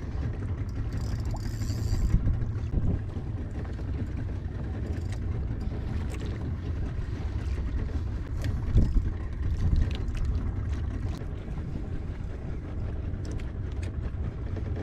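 Steady low rumble of wind and the boat on open sea, with a brief high buzz about a second in and scattered small clicks, as a spinning reel is worked against a hooked fish.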